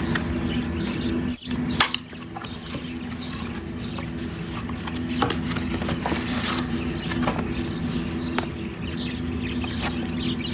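Packaging being handled while a humidifier is unboxed: scattered clicks and rustles, the sharpest about two seconds in, over a steady low hum.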